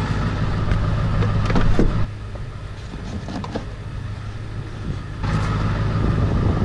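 Ford F-350's 7.3-litre Power Stroke turbo-diesel V8 idling steadily. A few light clunks of gear being set into the pickup bed sound over it.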